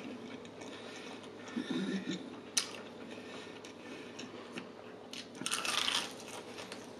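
Close-up eating sounds of crispy fried chicken: faint chewing, a sharp click, then a louder crunch of the breaded skin being bitten about five and a half seconds in.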